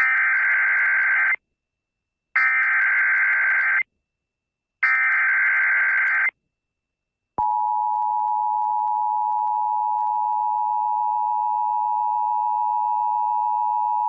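Emergency Alert System tones from an FM radio broadcast: three short bursts of screeching data tones, the SAME header, each about a second and a half long, then about seven seconds in the steady two-tone EAS attention signal begins and holds. They announce a severe thunderstorm warning.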